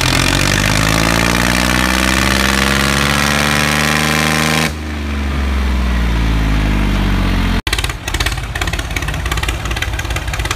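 Diesel tractor engines running hard under load, pulling against each other in a tug-of-war. The engine note shifts in pitch over the first few seconds. About seven and a half seconds in the sound cuts off abruptly and gives way to a rougher engine noise.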